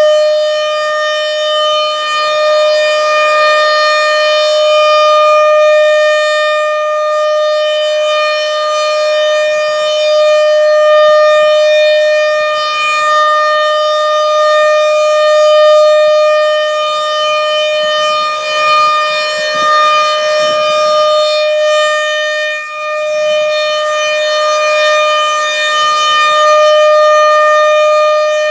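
RM-130 outdoor warning siren sounding a steady tone at one pitch. Its loudness swells and fades every few seconds.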